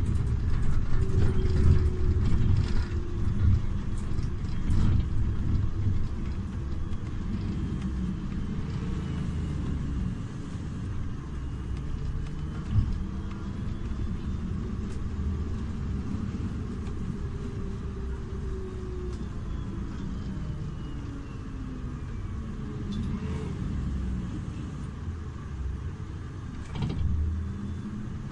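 IvecoBus Urbanway 12 Hybrid city bus running with a steady low rumble and faint whines that slowly rise and fall in pitch. It is louder in the first few seconds and then gently quieter, with a single knock about halfway through.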